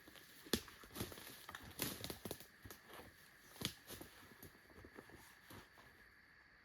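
Irregular crackling and snapping of dry leaves and twigs under footsteps on a forest floor, thinning out near the end.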